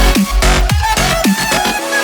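Electronic dance music in a dubstep style, with a heavy bass line that drops out near the end, and sweeping synth sounds.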